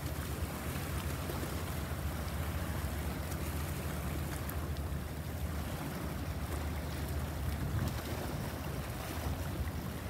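Sea waves washing in steadily, with wind rumbling on the microphone.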